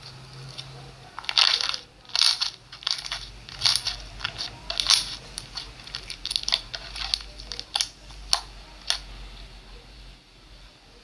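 Slime being squeezed and pressed: an uneven run of short, sharp pops and clicks, from about a second in until about nine seconds.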